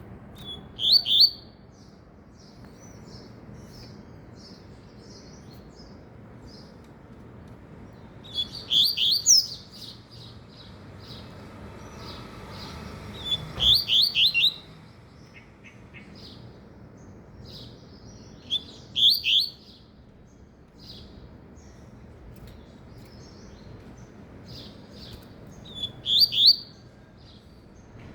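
Double-collared seedeater (coleiro, papa-capim) singing: five short bursts of song a few seconds apart, each a quick run of sweeping high notes, with soft chirps between them.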